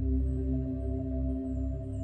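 Ambient background music of sustained, steady low tones.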